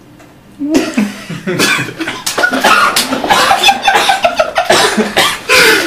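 A man bursts out laughing under a second in, then keeps laughing hard in loud, repeated fits.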